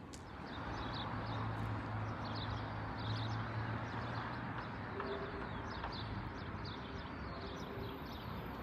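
Outdoor town ambience: a steady wash of distant traffic, with a low engine hum through the first half, and small birds chirping over it again and again.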